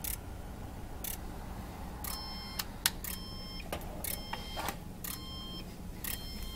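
Keithley DAQ6510 data-acquisition multimeter sounding its audible limit alarm: a high electronic beep about half a second long, repeating roughly once a second from about two seconds in, signalling that the microprocessor thermocouple channel has gone over its high temperature limit. Under it, sharp clicks about once a second come from the scan card's relays switching channels.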